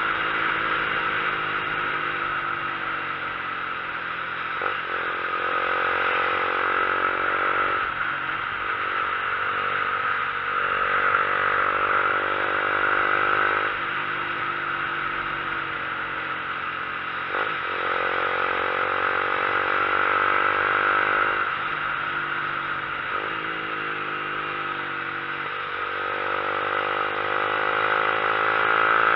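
Vehicle engine pulling up a mountain road, its pitch climbing and then dropping back again and again as it accelerates and eases off or shifts. Steady wind and road noise runs underneath.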